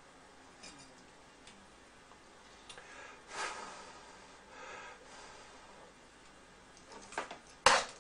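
Quiet workbench with faint ticks and two soft breaths, about three and a half and five seconds in. Near the end come several sharp metal clicks and clinks.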